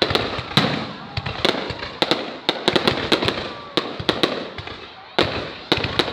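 Fireworks bursting in quick, irregular succession: sharp cracks, each with a fading rumble, over voices in the background.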